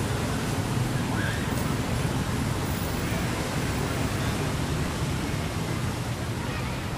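Steady low rumbling background noise, with a faint short high squeak about a second and a half in.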